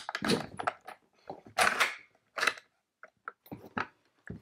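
Metal clicks and knocks and a scraping slide as the HK43's bolt carrier and recoil spring are drawn rearward out of its stamped steel receiver; the slide, about a second and a half in, is the loudest part.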